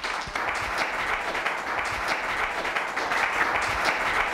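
Audience applauding, many people clapping steadily together.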